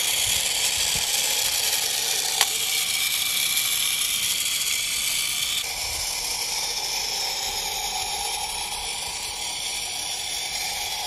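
Small solar-powered toy motor and plastic gearbox whirring steadily as they spin the toy boat's propeller, with a single click about two and a half seconds in. The sound drops a little in level about halfway through.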